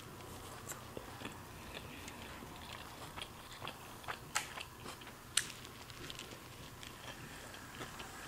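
Faint chewing and mouth sounds close to a clip-on microphone, with scattered small clicks as wooden chopsticks pick at fried rice in a takeout container. Two sharper clicks come about four and five seconds in.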